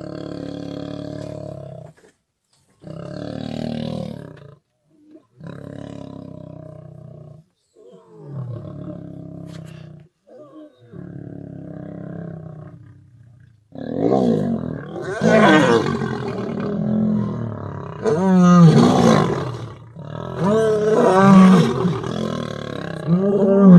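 Male East African lions in a fight standoff. A series of low growls, each one to two seconds long with short pauses between, breaks about halfway through into much louder snarling and roaring as the lions go at each other.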